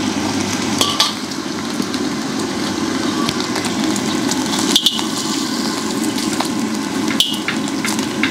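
Beaten egg sizzling in hot oil in a wok. Three sharp metallic clinks ring out, at about one, five and seven seconds in, as the metal spatula strikes the wok.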